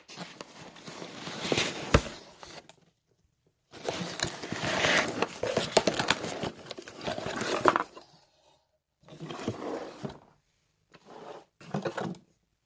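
Unboxing handling noise: a cardboard box and the packaging inside rustled, scraped and crinkled in several bursts with short pauses between.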